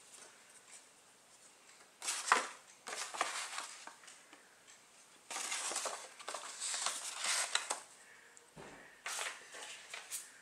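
Paper crackling and rustling as a folded leaflet is unfolded and handled, in three bursts with quiet between them.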